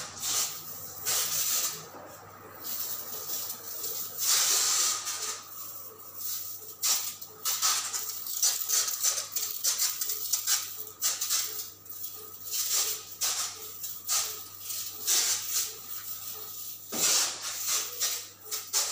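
Insecticide pressure sprayer hissing in short, irregular bursts as the nozzle is triggered, with one longer burst about four seconds in, over a steady low hum.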